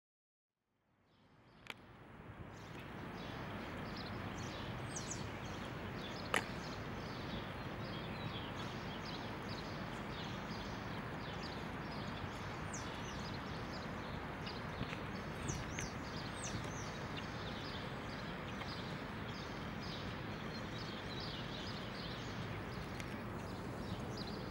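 Outdoor ambience: a steady background hum with many small birds chirping, and now and then a single sharp click. It fades in after about a second of silence.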